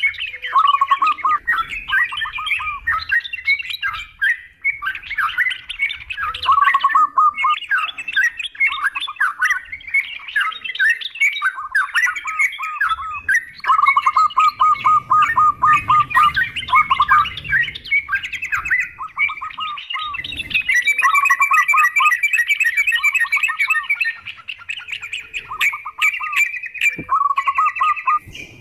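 Yellow-vented bulbuls (trucukan) and zebra doves (perkutut) calling together: dense, overlapping chatter of quick repeated notes, with a few brief lulls.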